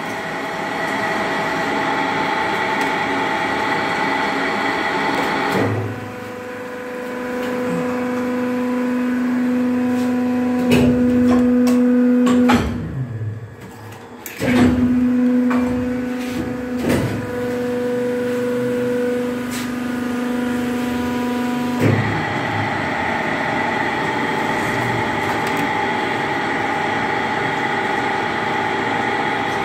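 Plastic injection moulding machine running with a steady mechanical hum. About six seconds in, the hum shifts to a lower steady drone. Near the middle, several clunks and a brief quieter stretch break into it, and at about twenty-two seconds the first hum returns.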